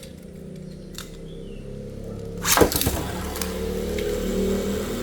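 Two metal Beyblade spinning tops hit the stadium with a sharp clatter about two and a half seconds in, then spin with a steady whirring rattle that grows a little louder toward the end.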